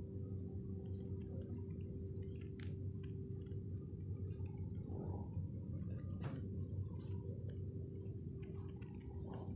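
Steady low mechanical hum of an indoor appliance with a faint constant tone, and a couple of light clicks.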